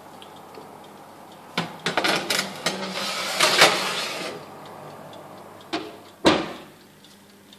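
Metal baking tray set onto a wire oven rack with a few clinks, then slid in along the rack with a scraping rattle. Just after six seconds in, the oven door is swung shut with a sharp thud.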